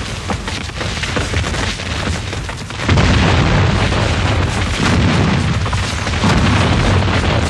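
Muzzle-loading Civil War field cannon firing a heavy boom about three seconds in, followed by more booms. Before and around them runs a dense crackle of massed musket fire.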